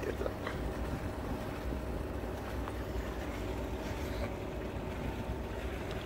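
Ship's machinery running with a steady low rumble and a faint even hum.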